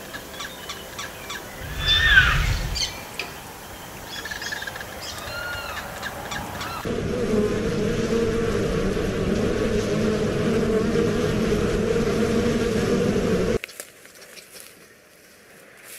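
Honeybees buzzing in a steady hum at a wooden hive entrance, which cuts off suddenly near the end. Before it come bird chirps and a loud falling squeal over a low rumble about two seconds in; a faint patter follows.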